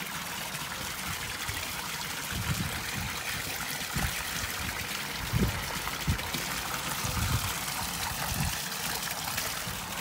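Water trickling steadily into a koi pond, a continuous splashing hiss. Several soft low thumps are scattered through it.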